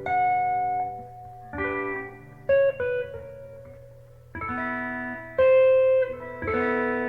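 Guitar being played slowly: single plucked notes and chords about once a second, each left to ring out, over a steady low hum.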